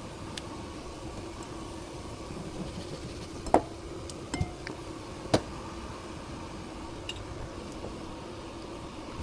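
A steady machine hum, broken by a few sharp knocks, the two loudest about two seconds apart.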